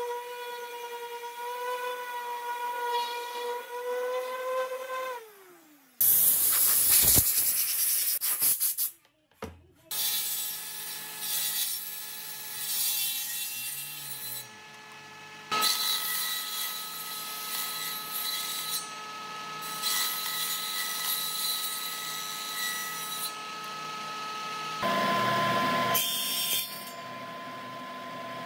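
Electric random orbital sander running on a pine board, winding down about five seconds in. It is followed by the running of other woodshop power machines, a jointer among them, with a loud burst of cutting noise soon after the sander stops.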